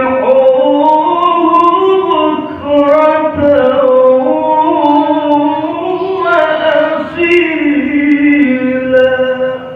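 A reciter chanting the Qur'an in the melodic qiro'ah style, carrying one long ornamented phrase that winds up and down in pitch. The voice breaks off just before the end.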